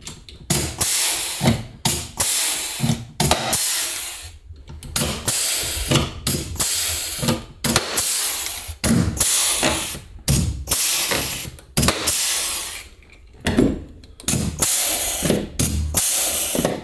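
Handheld pneumatic tool running in many short bursts, each a whir with air hiss, as a strip of interior trim beading is fastened to the wall.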